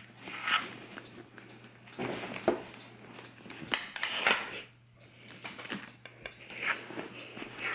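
Irregular rustling and soft knocks of a leather handbag being handled, shifted and tilted while an organizer insert is worked into it, with light clicks from its metal hardware.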